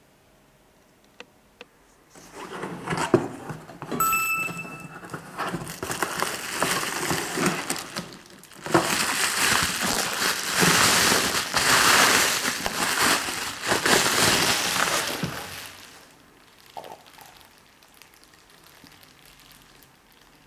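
Crinkling and rustling full of small clicks and knocks, dying away about two-thirds of the way through, with a brief clear tone about four seconds in.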